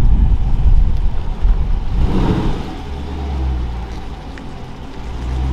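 Dodge Scat Pack's V8 running as the car rolls slowly along a street, heard from outside the car. Strong, uneven low rumble in the first couple of seconds, settling into a steadier low drone.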